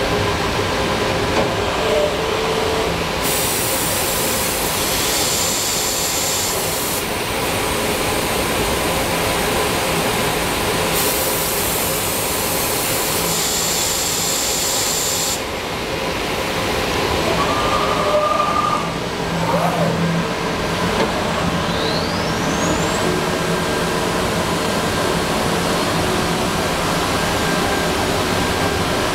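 Masterwood Atlas 5XL 5-axis CNC machining center running, a steady hiss and hum, with two spells of sharper high hissing a few seconds long in the first half and a brief rising whine in the second half.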